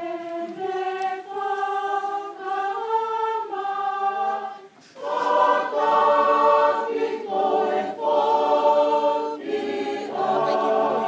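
A large group singing a Tongan hiva (song) together, unaccompanied, in held, sustained notes. The singing breaks off for a moment about halfway, then comes back fuller and louder in several-part harmony.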